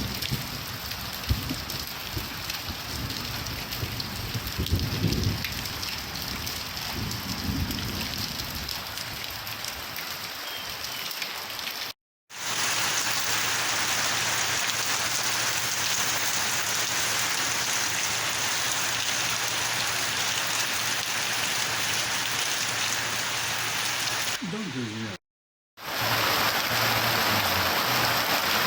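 Steady rain pouring, with uneven low rumbles in the first several seconds. The sound cuts out completely for a split second twice, each time coming back as a steadier, slightly louder downpour, as different rain recordings are joined.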